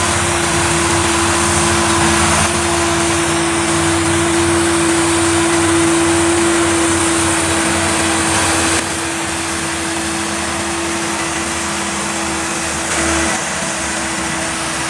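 Heavy diesel engines of a loaded logging truck and the crawler bulldozer pushing it, running steadily under load with a constant droning tone. The overall level drops a little about nine seconds in.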